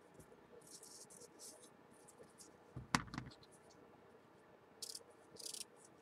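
Faint rustling of ribbon being folded and handled, with one soft knock about three seconds in.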